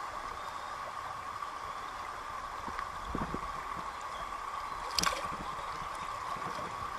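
Shallow stream water flowing steadily over stones, with brief splashes about three seconds in and a sharp splash about five seconds in as a brown trout is handled at the water's surface.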